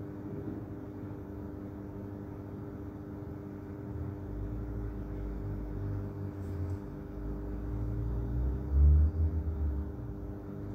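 Steady low background hum made of several fixed tones, with a low rumble joining about four seconds in and swelling to a brief loud thud near the end.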